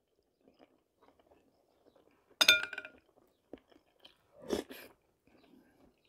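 Eating cold okroshka soup with a metal spoon from a glass bowl. A short ringing clink of spoon on glass comes about two and a half seconds in, and a slurp from the spoon about two seconds later, with faint chewing in between.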